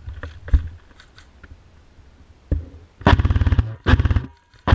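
Airsoft BB gun firing on full auto: two short bursts of rapid shots, the second about a second after the first, and a brief third burst at the end, with a few single sharp cracks before them.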